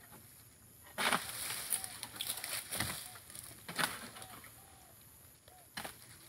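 Oil palm fronds being cut with a pole-mounted sickle: a few sharp cutting strokes and rustling of the palm fronds, starting about a second in. A bird chirps faintly in between.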